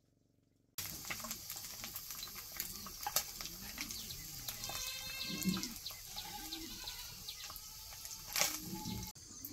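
Animal calls over a steady hiss like running water, with scattered clicks; the sound cuts in abruptly about a second in.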